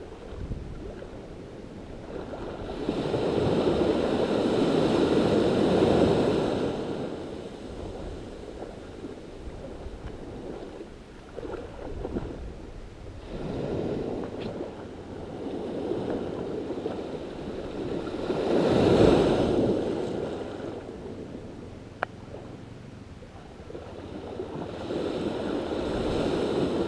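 Small sea waves washing in over the sandy shallows, swelling and fading in surges every several seconds, with one sharp click late on.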